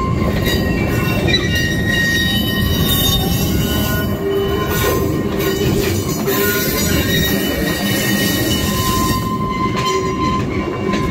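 Loaded grain hopper wagons of a slow freight train rolling past on rusty, little-used rails: a steady low rumble with wheel squeal, several high squealing tones that hold, fade and return.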